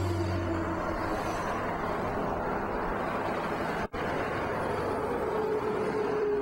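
Steady road-vehicle noise, a rush of traffic with a low engine hum underneath, broken by a sudden split-second dropout about four seconds in.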